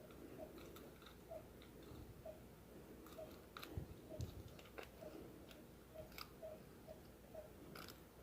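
Faint, scattered small clicks of a lock pick and tension wrench working inside a Master Lock padlock, over a soft repeating tick.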